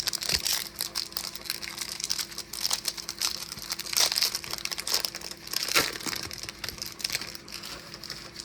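Foil wrapper of a Topps baseball card pack being torn open and crinkled by hand: a dense, crackling run of crinkles and small snaps that eases off near the end.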